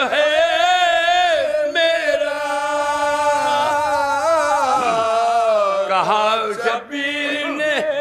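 Men chanting a salaam, a Shia elegy for Imam Husain, in long drawn-out sung phrases, with the voice wavering in the middle and a brief break near the end.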